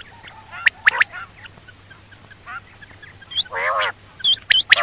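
Quail calling in short, sharp notes: a quick cluster about a second in, a longer, lower call a little past halfway, and a run of quick high notes near the end, over a faint steady hum.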